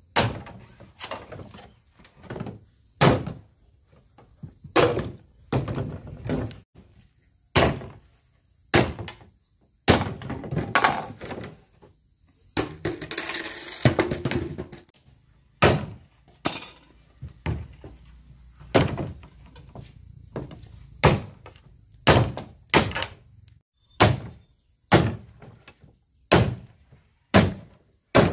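A series of sharp knocks and thuds, irregularly spaced at roughly one a second, with a couple of seconds of hissing noise about halfway through.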